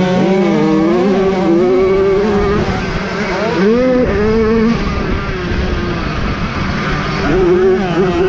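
Small 50 cc two-stroke Jawa motorcycle engines running at high revs, their pitch rising and falling as they rev and shift, with a second engine note coming in near the end.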